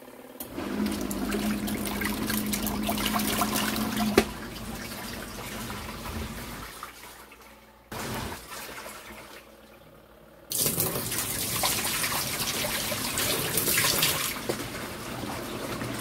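Kuppet mini portable washing machine agitating a load, its wash motor humming under churning water, stopping with a click about four seconds in. About ten seconds in, water starts rushing suddenly out of its drain hose into a stainless steel sink.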